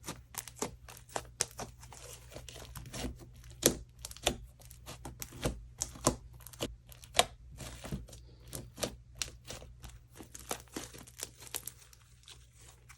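Homemade slime being squished and stretched by hand, making a run of irregular sticky clicks and pops, several a second.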